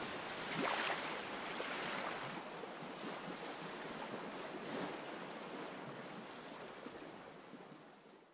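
A steady rushing wash like ocean surf, with no music, slowly fading away to silence near the end.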